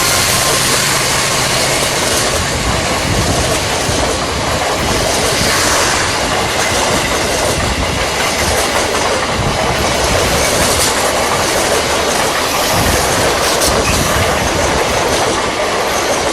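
Long-distance passenger train passing close by: a loud, steady rush of carriages with wheels clattering over the rail joints.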